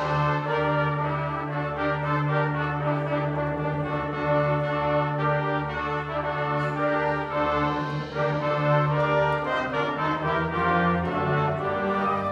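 Junior high concert band playing live, woodwinds and brass sustaining full chords over a held low note.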